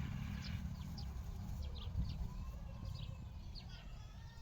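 Small birds chirping in short, quick notes over a steady low rumble.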